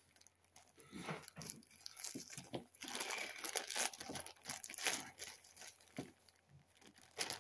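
Thin plastic bag crinkling as hands handle and open it: irregular crackles, loudest in the middle, with one sharp crackle near the end.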